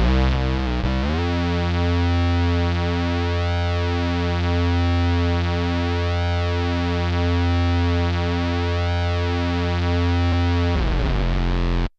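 Electric bass played through an MXR Bass Synth pedal: a few quick low notes, then one long held synth-bass note with a slow filter sweep that rises and falls about every two and a half seconds. A brief change of notes near the end, then the sound cuts off abruptly.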